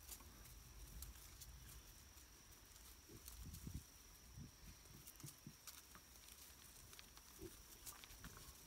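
Faint, short grunts from a group of piglets, a handful scattered through a few seconds, over near silence.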